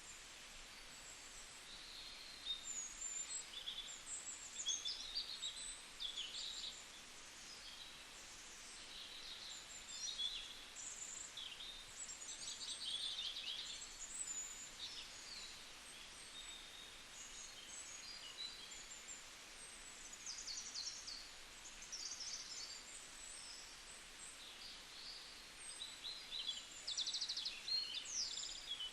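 Birds chirping and calling: many short, quick notes that rise and fall in pitch, scattered throughout and fairly faint, over a faint outdoor hiss.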